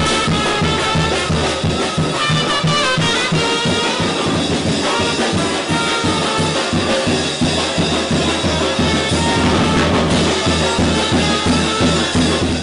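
A live brass band playing a loud, upbeat tune: trumpets and other brass over drums and clashing hand cymbals, with a steady beat.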